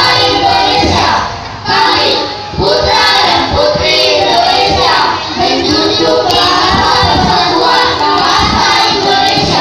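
A group of voices, children among them, singing together loudly in unison, with the notes held and short breaks between phrases.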